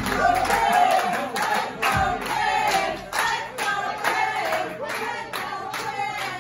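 Crowd clapping in a steady rhythm, about two to three claps a second, with voices singing along. The low beat of the entrance music drops out about a second in, leaving the claps and voices.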